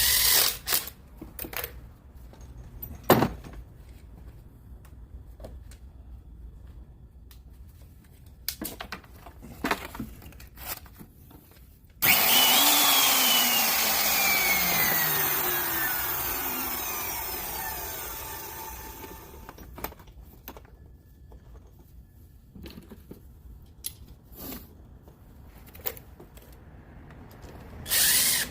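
A few handling clicks and knocks, then about twelve seconds in a power tool starts abruptly and runs for about seven seconds, its pitch falling steadily as it fades away.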